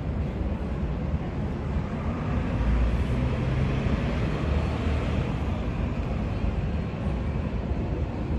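Low, steady rumble of a ferry's engine running on the harbour, swelling a little a few seconds in.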